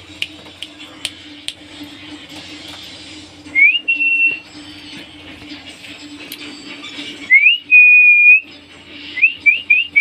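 Whistling: a whistle that rises and then holds about three and a half seconds in, a longer rising-then-held whistle of about a second near seven seconds in, and a quick run of short rising whistles near the end.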